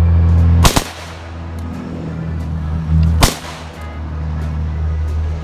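Two single shots from an AK-74 rifle, about two and a half seconds apart, each followed by a brief echo, over background music with a steady bass.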